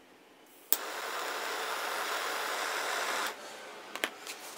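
A click, then a steady hiss with no pitch for about two and a half seconds that cuts off sharply, followed by two light clicks near the end.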